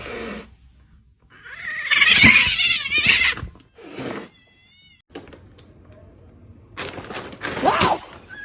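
Domestic cat meowing: a long, loud, wavering call about two seconds in, and another rising-and-falling meow near the end.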